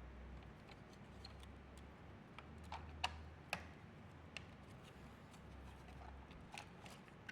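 Faint, scattered clicks and taps of plastic pool-cleaner parts being handled and fitted together as the top plate goes back on, with two sharper clicks about three seconds in.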